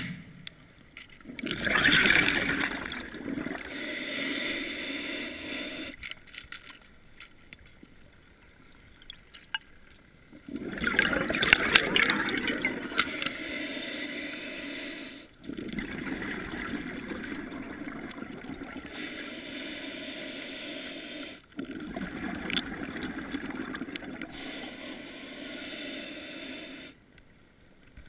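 Muffled underwater noise of water rushing and gurgling, with scraping and knocking from handling a speargun. It comes in several stretches of a few seconds that start and stop abruptly.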